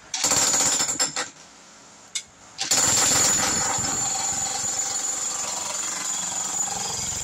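Xtreme Power US electric demolition jackhammer chiselling into a concrete slab. It runs for about a second, stops with a couple of short blips, then hammers steadily from about three seconds in.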